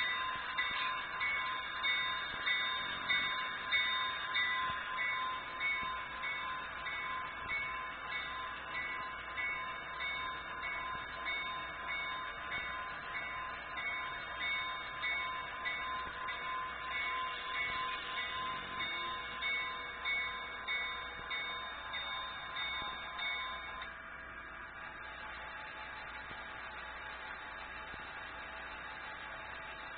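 A bell on an HO scale model railroad ringing at a steady pace, a little more than one stroke a second, slowly fading, then stopping about 24 seconds in, leaving a faint steady hiss.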